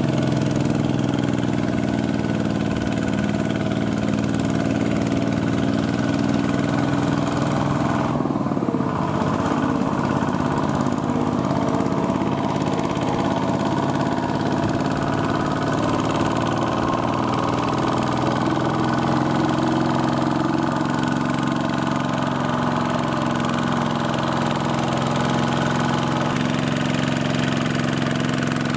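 Single-cylinder diesel engine of a Kubota two-wheel walking tractor running steadily under load as it hauls a trailer of rice sacks. Its pitch shifts about eight seconds in.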